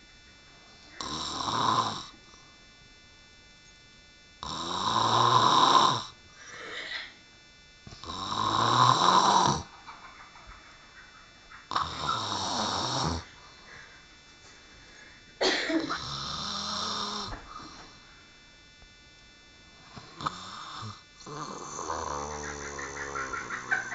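A woman snoring, with loud snores about every three to four seconds and softer ones between. Near the end the sound turns irregular, with a wavering pitched tone.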